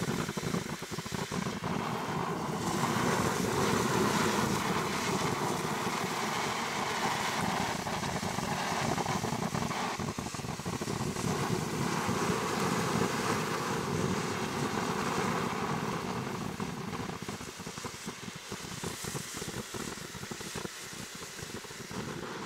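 Ground fountain firework (Röder/Lesli 'Mythos' fountain) burning with a steady rushing hiss as it sprays sparks. It fades over the last several seconds as the fountain burns out.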